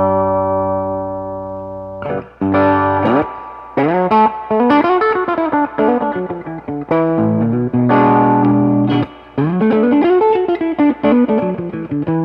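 Electric guitar, a Reverend Pete Anderson PA-1, played through a Mesa Boogie 5:25 Express 1x10 combo amp. A chord rings out for about two seconds, then come short chord hits and quick single-note runs, with more chords near the end.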